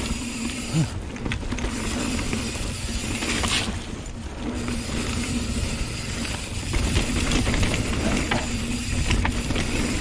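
Hardtail mountain bike riding fast down a dirt trail: tyres rumbling over the dirt, chain and frame rattling over bumps, and wind rushing over the camera microphone. Over it runs a steady buzz, the rear freehub ratcheting while the bike coasts.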